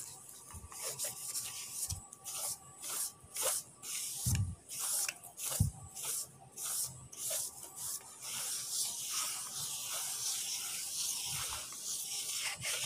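A bare hand rubbing and brushing dust off the dry surface of a cast concrete weight plate: scratchy strokes about three a second, turning into a steadier rubbing hiss for the last few seconds, with a couple of dull thumps midway.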